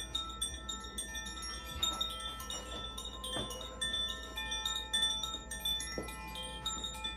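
Makino-style Advance Chimes struck one after another, many clear high tones overlapping and ringing on.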